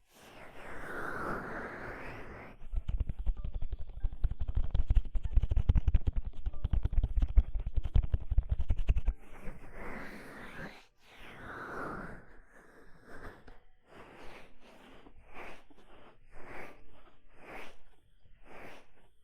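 ASMR ear massage: hands rubbing on a microphone's ear. It starts with a slow swishing rub, then comes a rapid run of muffled crackling taps and rubs for about six seconds, then more swishes and a series of strokes about one a second.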